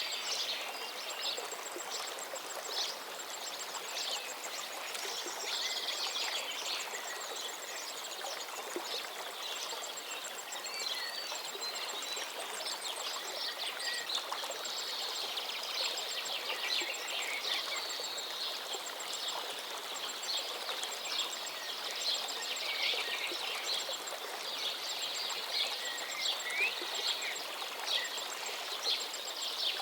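Flowing river: a steady rush of running water, with birds chirping and calling over it and a rapid, even, high-pitched ticking.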